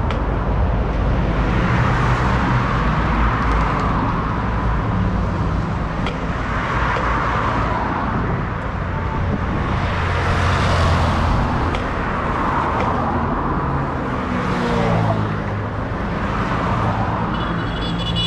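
Road traffic on a busy highway: a steady rumble of engines and tyres, swelling as vehicles pass every few seconds. Near the end an engine accelerates, rising in pitch.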